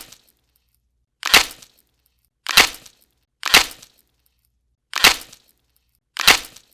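A series of six sharp cracks, each dying away quickly, spaced unevenly about a second or so apart with silence between.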